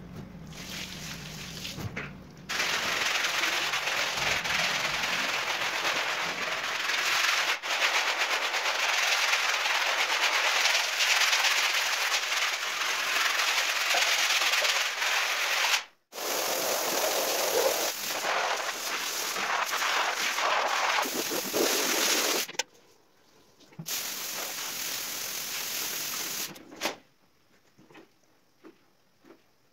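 Hand scrub brush scrubbing a rug sprinkled with cleaning powder: a rapid, dense scratching that cuts off sharply about halfway through, resumes, stops again about three quarters of the way in, and comes back briefly before dying away near the end.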